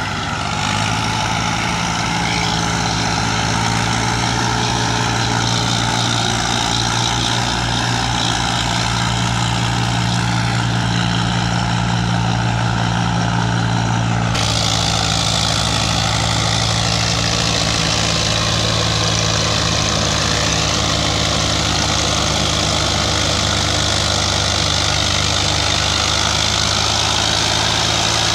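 Massey Ferguson 385 tractor's diesel engine running steadily under heavy load while hauling a trolley out of soft ground. The sound shifts abruptly about halfway through.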